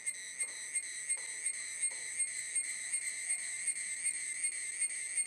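Cicada song: a steady, high-pitched buzzing whine that pulses evenly about four times a second.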